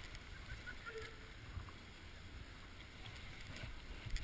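Low rumble of wind and handling on a camera microphone over faint snowy-slope ambience, with a brief knock near the end.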